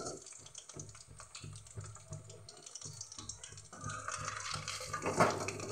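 Marinated chicken pieces sizzling and crackling in hot oil in a steel kadai, a fine hiss full of small pops. A louder knock and scrape about five seconds in.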